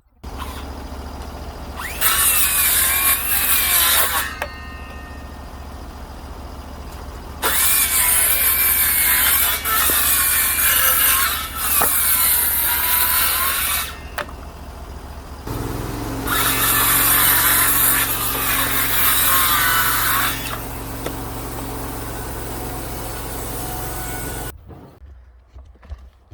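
Power saw cutting wood three times, the first cut short and the later two longer. Between the cuts the motor keeps running steadily, and its pitch wavers as the blade bites. Everything cuts off suddenly near the end.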